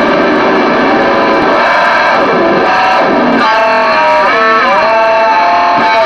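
Distorted electric guitar played loud. A dense, noisy wash gives way about halfway through to held notes that swoop down and back up in pitch together, in the manner of tremolo-arm dives.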